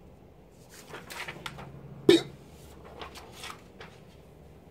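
Rustling and scraping of a sheet of trading cards being handled and laid down on a countertop, with one short, sharp sound about two seconds in.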